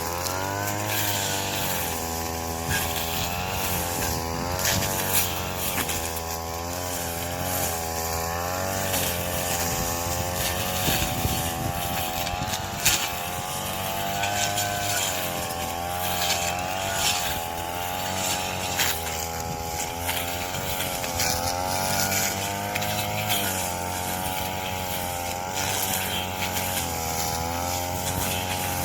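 Engine of a Yamaha-powered corn-stalk cutting machine running under load, its pitch dipping and recovering about once a second as stalks are fed through, with short chopping clicks.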